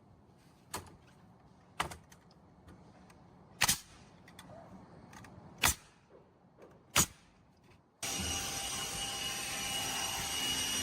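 Pneumatic nail gun firing five single shots into timber decking, a second or two apart. About eight seconds in, a power tool starts running steadily with a whine.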